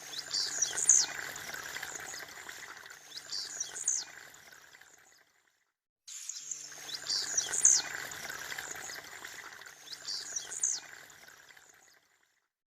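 Blue-black grassquit (tiziu) singing its short, sharp, upward-sweeping song phrase four times over a steady hiss. The sound cuts out twice, and the same stretch of song repeats after each gap.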